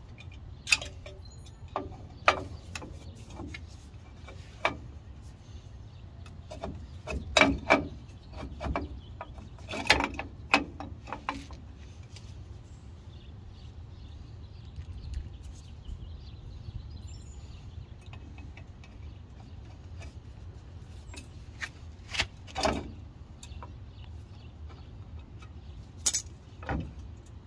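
Metal brake shoes and their hardware clinking and knocking against the steel backing plate as a 1995 Ford F150 rear drum brake shoe is worked into place by hand. The clinks come in scattered clusters, loudest about seven, ten and twenty-six seconds in, over a steady low rumble.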